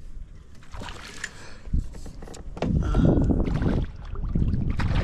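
Gusts of wind buffeting the microphone in uneven low rumbles, loudest about halfway through and again near the end, with a few light knocks from the boat.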